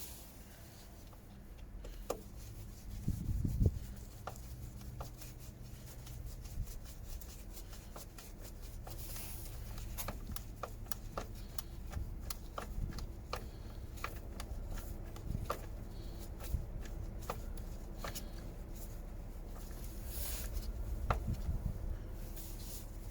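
Hand-tool work on a car engine's inlet manifold: a new MAP sensor being seated and its T25 Torx screw driven in, heard as a run of small clicks and taps, with a louder cluster of knocks about three seconds in.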